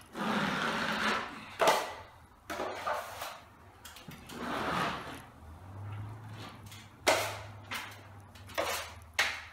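A 14-inch drywall taping knife scraping joint compound off a 16-inch metal mud pan and spreading it across a ceiling. A series of scraping swipes: some long and smooth, some short and sharp.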